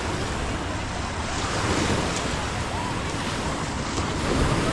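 Sea surf breaking and washing up a beach, swelling louder about two seconds in, with wind rumbling on the microphone.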